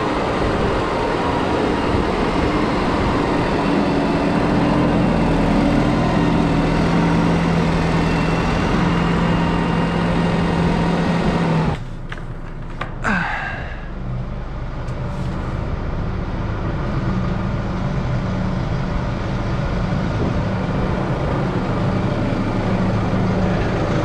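Tractor diesel engine running steadily, lugging at low revs while still cold. About halfway through it drops away suddenly to a duller, quieter sound, with a brief falling squeal, then comes back up to steady running.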